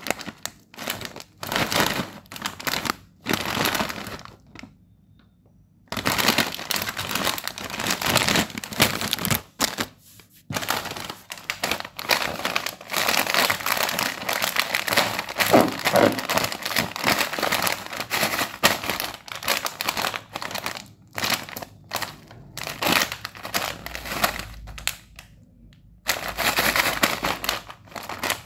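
Plastic snack packets crinkling as hands squeeze and turn them: first a Kurkure Masala Munch bag, then a Nova Choco Pockets wrapper. The crinkling comes in bursts with a couple of short pauses.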